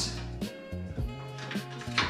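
Background music with sustained low notes, and a few sharp metallic clinks from steel plow-mount parts being handled.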